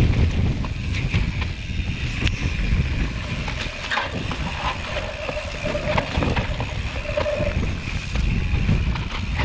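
Mountain bike rolling down a rough dirt singletrack, with wind rumbling on the camera microphone and scattered knocks and rattles from the bike over bumps.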